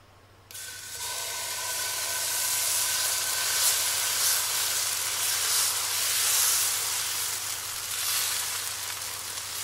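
Fenugreek-and-rice dosa batter sizzling on a hot non-stick skillet, starting suddenly about half a second in as the ladleful hits the pan. The hiss keeps on while the back of the ladle spreads the batter.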